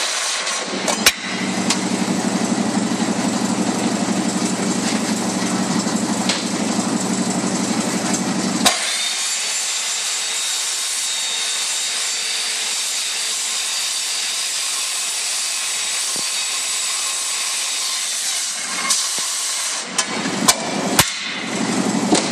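Evolution corded circular saw cutting through the riveted side wall of a box truck, running steadily with a deep hum under a high cutting hiss. About 9 s in there is a sharp click and the deep part drops out while the high cutting sound goes on. The cut ends about 19 s in, followed by a few short knocks.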